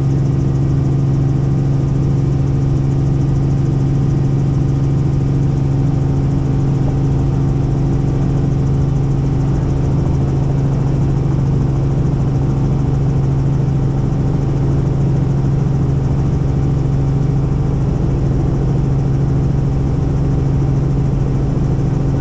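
Helicopter in steady flight: an unchanging drone of engine and rotor noise with a strong low hum.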